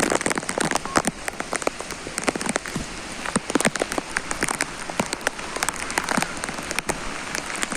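Heavy rain pouring down: a steady hiss packed with many sharp, close drop hits.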